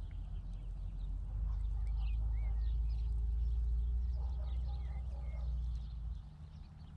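Small birds chirping and warbling in short bursts over a low, steady rumble that swells about a second in and eases near the end.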